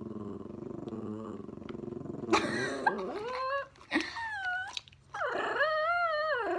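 An animal growling low for about two seconds, then giving three high whines that rise and fall.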